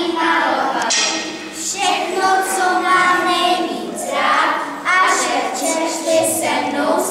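A group of children singing together, with several long held notes.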